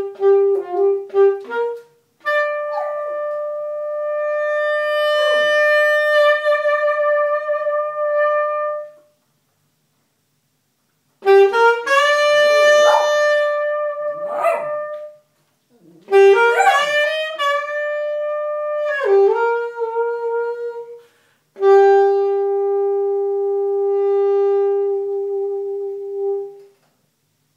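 Saxophone playing long held notes and short phrases, with pauses between, while a small dog howls and yips along in places. It ends on one long low held note.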